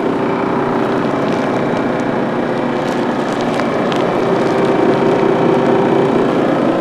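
KAMAZ 54901 truck's diesel engine idling steadily, an even hum with a strong steady tone.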